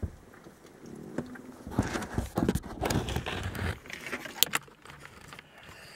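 Handling noise inside a car: rustling and scattered knocks as the camera is picked up and moved about, with two sharp clicks about four and a half seconds in.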